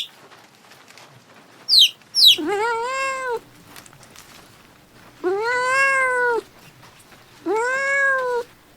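An animal calling: two short high chirps that fall in pitch, then three drawn-out calls of about a second each that rise and fall in pitch, with pauses between.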